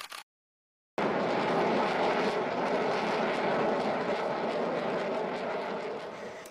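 Jet noise from an RSAF F-15SG fighter flying overhead: a dense, steady rush. It drops out to complete silence for about a second just after the start, then carries on and eases slightly toward the end.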